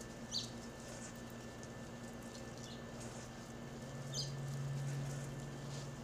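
Lovebirds giving a few short, sharp chirps, the clearest about half a second in and about four seconds in, over a steady low hum that swells louder in the second half.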